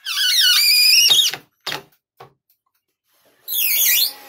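Cordless drill driving screws into a plywood cabinet frame in two bursts, a long one at the start and a shorter one near the end, with a high whine that wavers and slides in pitch. A couple of light knocks come between the bursts.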